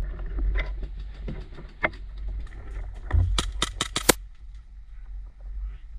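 Airsoft pistol firing a quick string of five or six shots about three seconds in, really loud.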